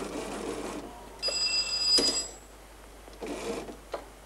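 An old typewriter rigged as a hand-cranked machine being cranked, with a rattling, mechanical sound; about a second in a bell rings clearly for about a second, and a few sharp clicks follow near the end.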